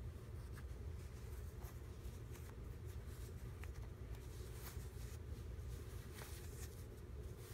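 Faint rustling and soft scuffs of cotton socks being pulled onto feet, a scattering of short scratchy strokes over a steady low hum.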